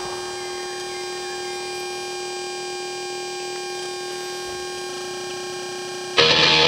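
Steady electronic hum of several fixed tones from the stereo's speakers while connected over Bluetooth. Near the end, a heavy metal track with electric guitar starts abruptly and loudly.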